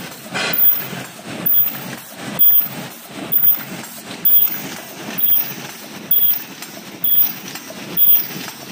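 JBZ-OCM12 paper cup forming machine running a test on 22oz cups: a steady mechanical din with a regular clattering beat a little faster than once a second, one beat per machine cycle.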